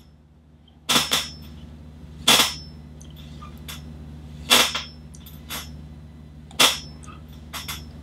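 Sharp clicks from the mouth and jaw as the jaw is worked open, forward and back with the head tilted back: about six clicks, irregularly spaced a second or two apart, some in quick pairs. A faint steady low hum runs underneath.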